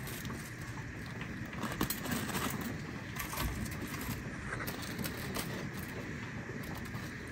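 Light rustling and small taps of crispy fried chicken tenders and paper liners being handled, over a steady hiss of rain.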